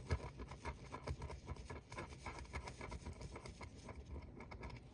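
Light, quick scratching of a scratch-off lottery ticket's coating, many short faint strokes in a row, with no single strong stroke.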